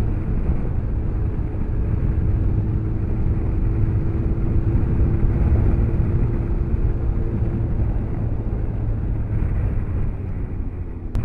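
Motorcycle riding at a steady speed, heard from on the bike: an even engine drone with a steady hum and a heavy low rumble. A short click comes near the end.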